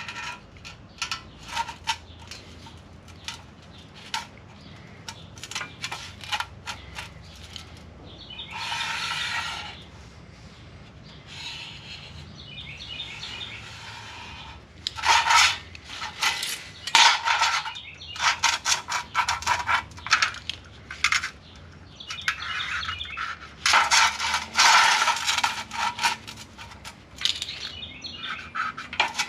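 Light metallic clicks and taps with bursts of scraping strokes, from an aluminium ruler and a sheet-steel patch being handled and marked out on a bench.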